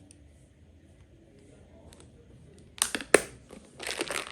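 Crinkling and rustling handling noise from a tool kit being unpacked, in two short bursts: one about three seconds in and one near the end.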